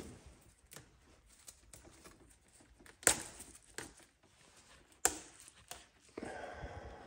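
Faint handling sounds on a deionized-water filter unit's PVC plumbing and plastic ball valves: scattered light clicks, two sharp knocks about three and five seconds in, and a short steady rushing noise near the end.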